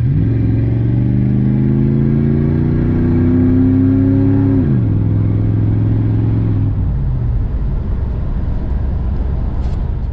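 1993 Chevrolet Caprice wagon's 305 TBI small-block V8 accelerating under load: the engine note climbs, drops sharply about four and a half seconds in as the transmission shifts up, holds steady, and then fades into road rumble after about seven seconds.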